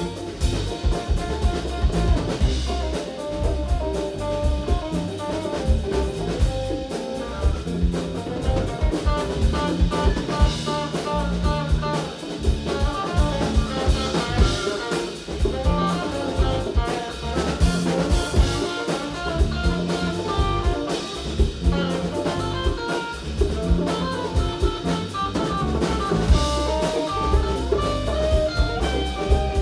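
Live rock band playing: a drum kit keeps a steady beat under bass and electric guitars, with a melodic lead line over the top.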